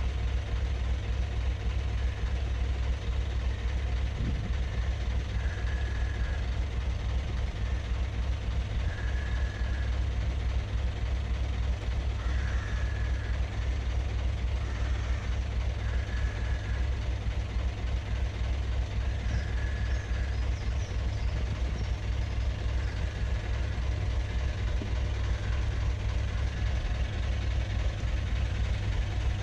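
Narrowboat diesel engine running steadily, a low, even rumble.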